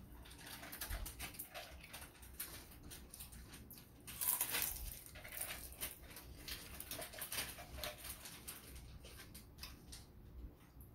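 Close-up chewing and crunching of a fried pork spring roll (lumpia shanghai): a dense run of crisp crackles and mouth clicks, with a louder crunch about four seconds in.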